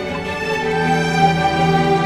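Slow, sad orchestral background music with sustained string notes, a new held chord entering at the start.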